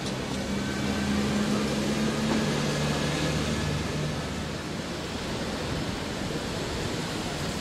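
Steady outdoor background noise, with a low droning hum through the first half that fades out about four seconds in.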